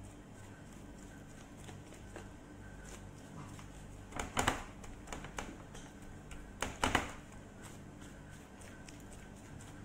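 A seasoning shaker being shaken over raw chicken in a metal tray: two short clattering bursts about two and a half seconds apart, with a few fainter clicks between them. A steady low hum runs underneath.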